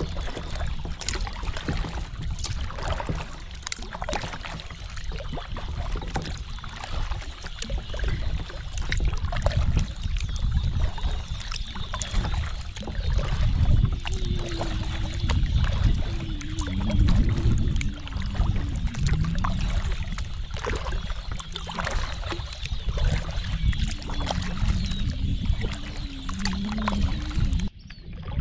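Kayak paddle strokes: the double-bladed paddle dipping and pulling through the water with repeated splashes and water trickling off the blades, over a steady low rumble.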